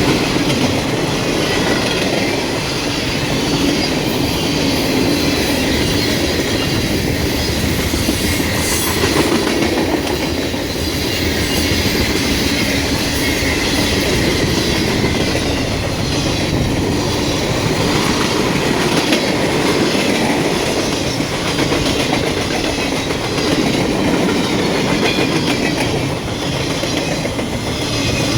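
Freight cars of a long 209-car train rolling steadily past, wheels clicking over rail joints in a continuous clickety-clack, with strong wind on the microphone.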